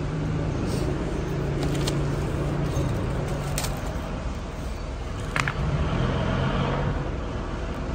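Steady low machine hum in a workshop, with a few sharp clicks and the crinkle of a plastic wrapper being opened by hand.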